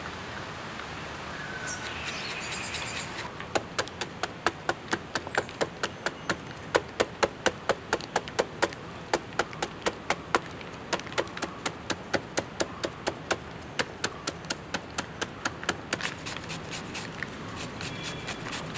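A knife blade hacking rapidly into a peeled raw jackfruit held in the hand, shaving it into fine shreds: a fast, even run of sharp chops, about four or five a second. It starts a few seconds in and grows weaker near the end.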